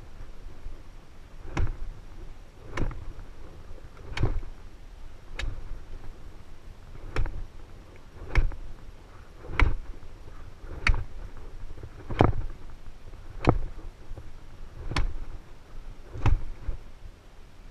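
Axe chopping into wood with steady, even strokes, about twelve sharp blows, one every second and a bit.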